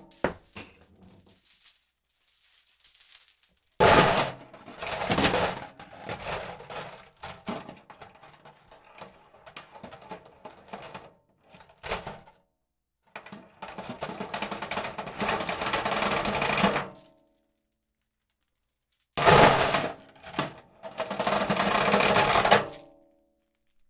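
Metal chain dragged across a surface, rattling and clinking in several separate runs with silent pauses between. Some runs start with a sudden loud clank, and the longest lasts about four seconds.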